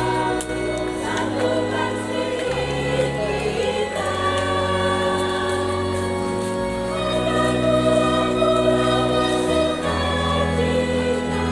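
Church choir singing a hymn in parts, the voices held in long chords that change every one to three seconds.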